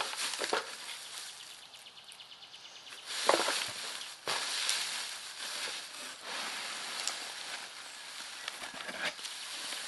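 Hands rummaging through dry pine shavings in a cardboard box, a crisp rustling that comes in bursts, loudest near the start and about three seconds in.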